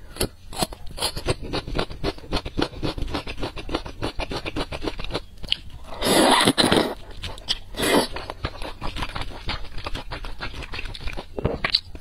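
Close-miked eating sounds: rapid wet chewing and smacking clicks, then a loud slurp of noodles about six seconds in and a shorter slurp near eight seconds.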